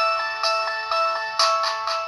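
Preloaded polyphonic ringtone on a Samsung T249 mobile phone playing a synthesized melody of quick, bell-like notes. The tune grows brighter and louder about one and a half seconds in.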